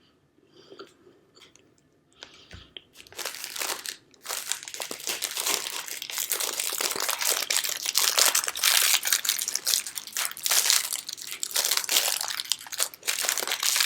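A plastic snack wrapper on a marshmallow pie being crinkled and crumpled as it is handled and opened, a dense crackle that starts about three seconds in and carries on after a few faint soft sounds.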